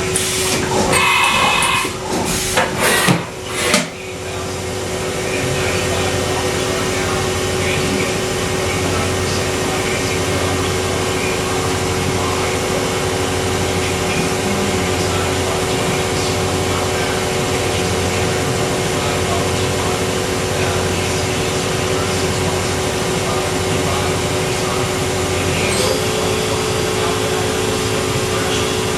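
A machine-shop machine running under power with a steady hum and a low pulsing about once a second, after several loud clattering knocks in the first few seconds. A second steady tone joins near the end.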